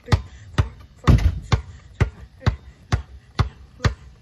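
Basketball being dribbled one-handed in a steady rhythm, about two bounces a second, each bounce a short, sharp smack.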